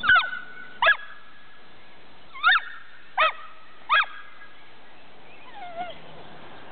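German shorthaired pointer giving five short, high-pitched excited yelps in the first four seconds.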